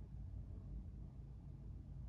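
Quiet room tone: a steady low hum with nothing else happening.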